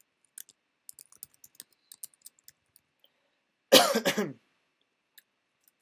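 Light, quick computer-keyboard keystrokes, then a single loud cough a little under four seconds in.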